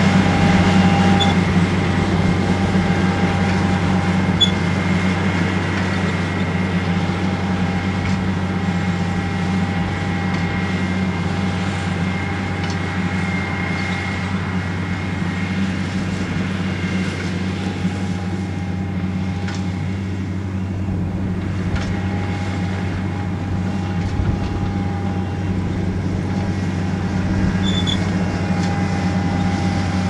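Dewulf RA3060 self-propelled potato harvester at work lifting potatoes, its 310 hp Deutz six-cylinder diesel running as a steady low drone, with two steady whining tones from the machinery above it and a few faint ticks.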